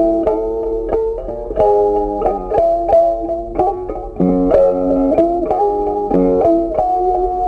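Background music: plucked guitar playing a melody with a steady beat.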